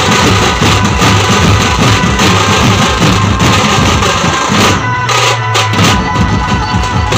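A dhumal band's large double-headed drums, beaten with sticks, playing a loud, fast, driving rhythm together. About five seconds in the strokes break off for roughly a second, leaving a low ringing, then the drumming comes back in.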